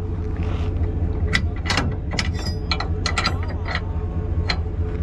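An uneven run of sharp metal clicks and clinks, some ringing briefly, lasting about three seconds, over the steady low hum of an engine running.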